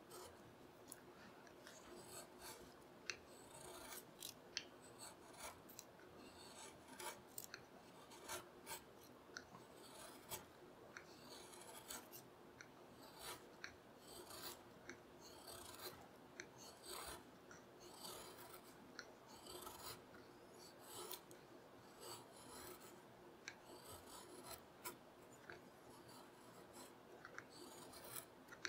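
Curved carving gouge cutting into a beech board by hand, shaving off curls. The sound is a quiet, irregular run of short, crisp slicing strokes, about one or two a second.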